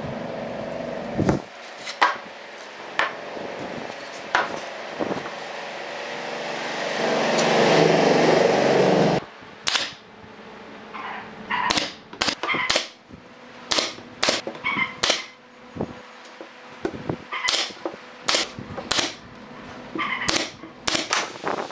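Nail gun firing nails into the pine boards of a drawer box: a series of sharp pops, a few spread out early on and many in quick succession through the second half. About seven seconds in comes a louder stretch of rough noise lasting about two seconds.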